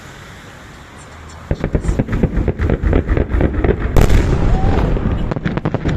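Fireworks salute going off: after a low steady hum, a rapid crackling run of bangs starts about one and a half seconds in and keeps going, loudest around four seconds in.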